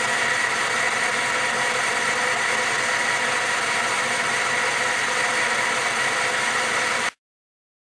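Metal-turning lathe running steadily while its cutting tool turns down a white plastic rod, a constant machine whine with a high steady tone. It cuts off suddenly near the end.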